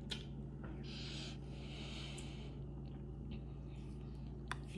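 Quiet room with a steady low hum and faint eating sounds as a spoonful of mango pulp and vanilla ice cream is tasted: a soft hiss-like sound from about a second in, and a couple of small clicks.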